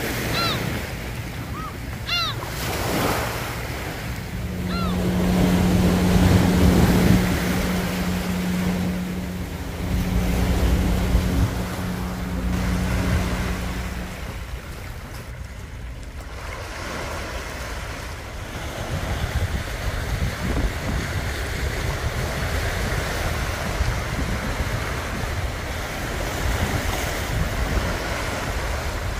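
Sea waves washing onto a pebble beach, with wind rumbling on the microphone. A low steady hum joins for several seconds in the first half, and a few short high calls sound near the start.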